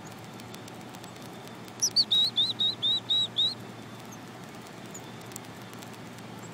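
A chickadee giving its chick-a-dee call, about two seconds in: a high falling opening note, then about seven quick, evenly repeated lower 'dee' notes, lasting about a second and a half.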